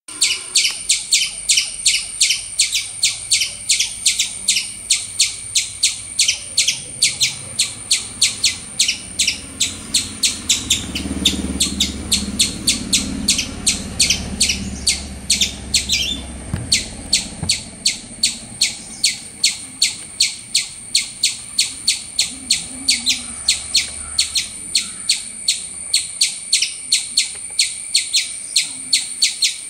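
Eastern gray squirrel chirping calls in a rapid, even series, about three or four sharp high-pitched chirps a second, kept up with only a brief break.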